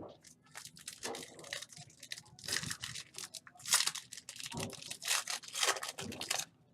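Foil trading card pack wrapper crinkling as it is torn open and handled, in a run of irregular rustles and crackles.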